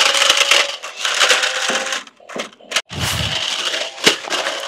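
RC stunt car's electric drive motor whining as its wheels grind and rattle over iron rods and gravel. Near the middle the sound drops out briefly, then comes back with a few sharp knocks.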